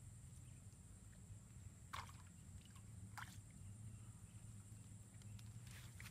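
Faint splashing at the pond surface from a fish on the line: two short splashes about two and three seconds in, then a longer splash near the end as the fish is jerked out of the water.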